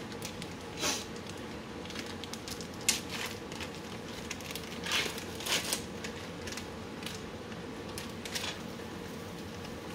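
A plastic sausage package rustling and crinkling in short bursts as it is torn open and handled, with one sharp click about three seconds in, over a faint steady hum.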